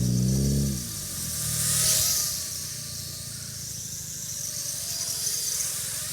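Motors and propellers of a small toy quadcopter drone whirring in flight, swelling louder about two seconds in and then easing off.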